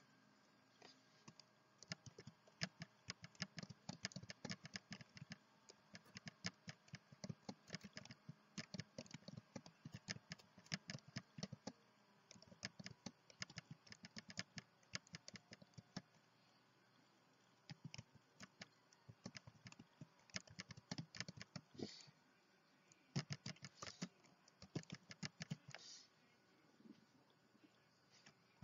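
Faint typing on a computer keyboard: rapid key clicks in runs, broken by short pauses.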